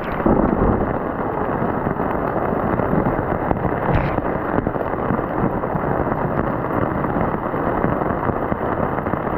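Storm wind buffeting the microphone over a steady rush of heavy rain, with one sharp knock about four seconds in.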